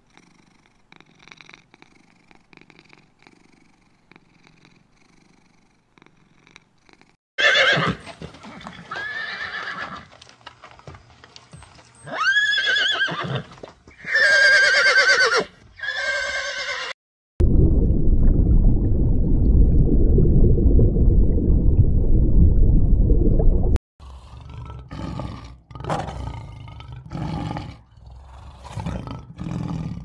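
A kitten purring faintly, then a horse neighing in several loud whinnies from about seven to seventeen seconds in. After that comes a loud low rumbling noise for about six seconds, then a run of short grunting calls near the end, like a lion's roar.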